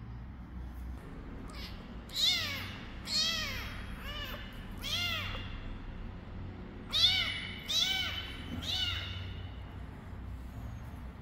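A young kitten meowing: a string of short, high-pitched meows, each rising then falling in pitch, with a brief pause in the middle.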